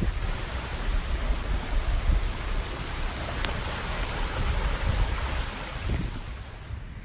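Heavy rain falling as a steady hiss, with wind rumbling on the microphone underneath.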